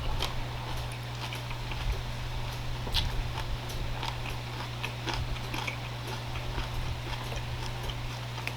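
Close-miked chewing of a raw garlic clove: irregular small crunches and mouth clicks, over a steady low hum.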